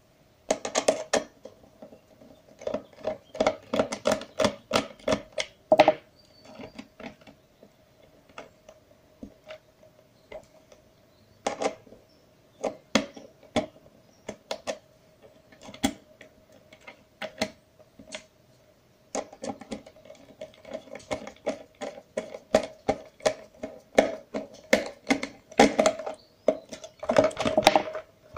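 A screwdriver clicking and scraping against the plastic shell of a wireless gamepad while a deep-set screw is worked out: irregular runs of sharp clicks, thinning out in the middle and getting busy again for the last several seconds.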